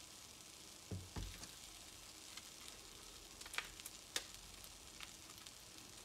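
Frozen takoyaki sizzling faintly in a hot sandwich cooker pan, with scattered small crackles and clicks. There are two soft thumps about a second in.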